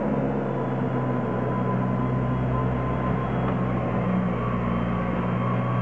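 Diesel engine of a backhoe loader used as a snowplough, running steadily as it drives along the street clearing snow.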